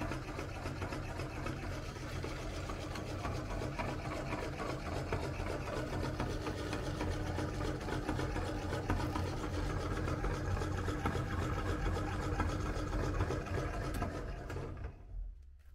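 Motor-driven meat grinder running steadily as it crushes Orbeez water beads through its grinding plate. It stops near the end.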